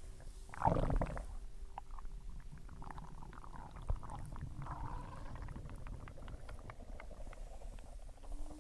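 Human stomach growling while digesting a meal: a loud gurgle about half a second in, then a run of small bubbling pops and squelches.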